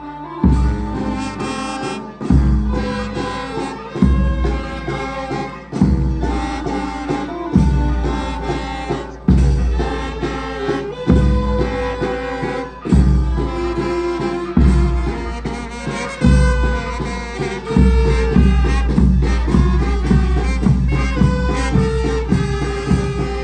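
Brass band music, with trumpets and trombones over a heavy bass beat that lands about every two seconds.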